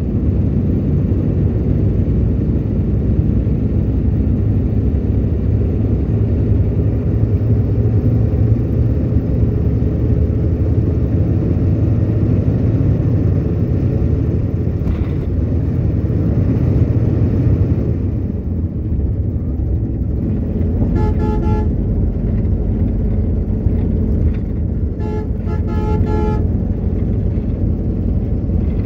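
Steady low rumble of an RM-2 air-conditioned coach moving along the road, with two horn honks well into the stretch: a short one, then a longer one about four seconds later.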